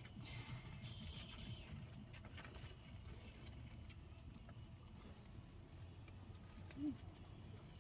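Faint clicks and light rustling of plastic food gloves and a foam takeout box while fries and a burger are picked at, over a low steady hum. A brief low tone sounds near the end.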